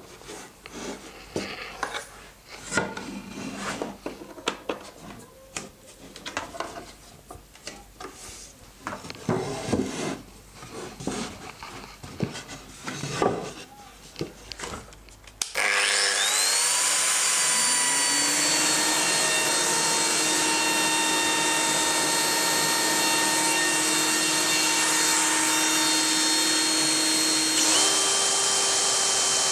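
Light knocks and rubbing of wooden panels being handled, then about halfway through a cordless drill starts suddenly, spins up and runs steadily with a whine, its pitch shifting once near the end.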